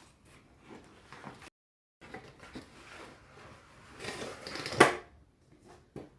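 A book parcel being handled and unwrapped: packaging rustling, with a sharp snap about five seconds in and a smaller click just before the end.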